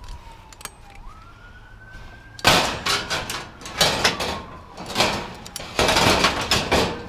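Pieces of scrap metal clanking and clattering as they are handled and stacked, a run of loud impacts from about two and a half seconds in. A faint siren wails slowly up and down throughout.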